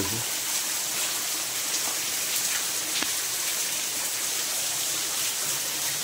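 Waterfall in a narrow rock gorge: a steady hiss of falling and splashing water, with a few scattered drip ticks.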